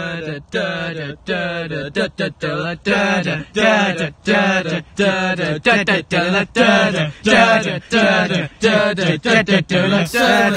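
Male voice chanting a repeated syllable in a steady rhythm, about two a second.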